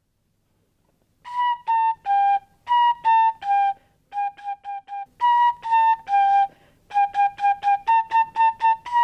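Piccolo playing a lively tune of short, tongued notes, mostly in falling groups of three, with runs of quick repeated notes; it starts about a second in.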